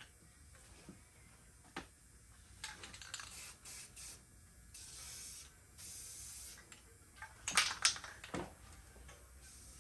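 Aerosol spray paint can spraying in three or four short hisses, with a few sharp clicks and knocks after them.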